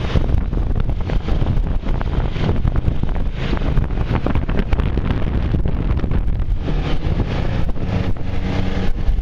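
Heavy wind buffeting on the microphone of a rider on a moving maxi-scooter, over the scooter's steady engine and road noise. The engine's hum comes through more clearly late on.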